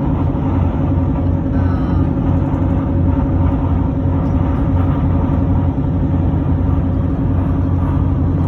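A vehicle's engine and tyre noise, running at a steady cruising speed on the highway: a constant low hum and rumble.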